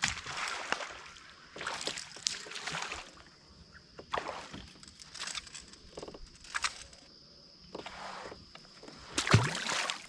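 Water splashing and sloshing against a kayak in short irregular bursts, with a louder splash and a thump on the hull about nine seconds in.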